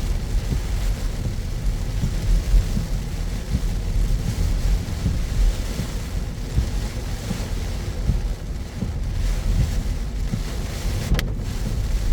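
Car driving in heavy rain: a steady low road rumble under an even hiss of rain and tyres on wet pavement, with one sharp click near the end.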